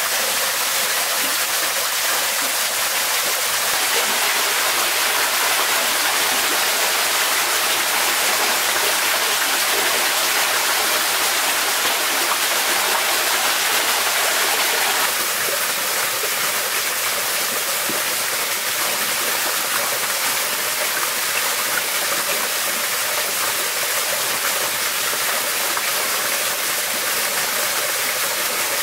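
Steady rush of running water from a forest stream and small waterfall. The sound shifts twice, about four seconds in and again about fifteen seconds in.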